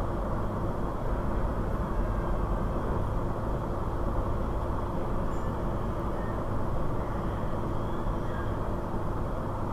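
Steady noisy rumble with a low hum underneath, even in level and without distinct events.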